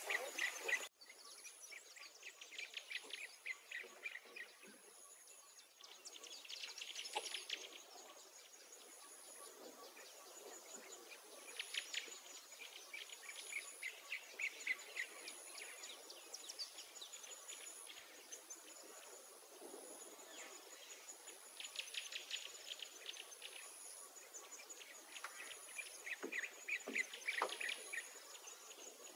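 Rural outdoor ambience: insects buzzing in a high, pulsing drone that repeats about once a second, with bird chirps and trills coming in short clusters every few seconds.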